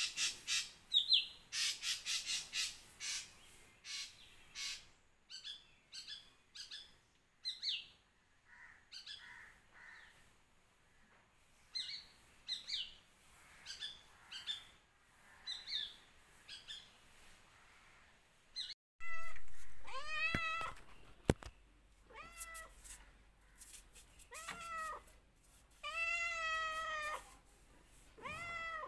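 Birds calling: a dense run of harsh calls in the first five seconds, then scattered short chirps. After an abrupt break, a cat meows about five times, each meow drawn out with a bending pitch.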